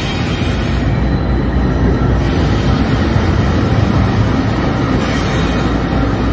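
Union Pacific diesel locomotive passing close by, its engine and wheels on the rails making a loud, steady rumble.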